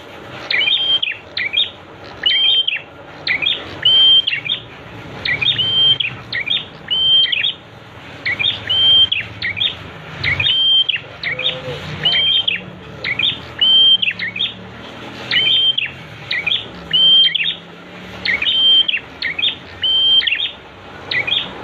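Prinia (prenjak) song: the same short phrase repeated over and over, about one every second and a half to two seconds. Each phrase is a few quick high chirps and a brief steady whistle.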